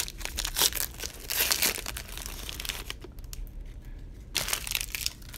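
Trading-card pack wrapper being torn open and crinkled: rustling bursts through the first two seconds, loudest about a second and a half in, then quieter, with another short burst near the end.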